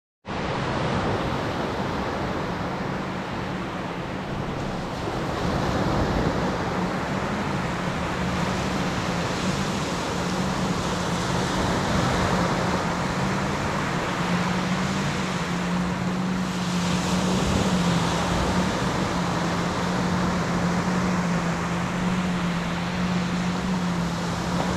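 Surf washing onto a sandy beach, with a steady low hum underneath that wavers slightly in pitch.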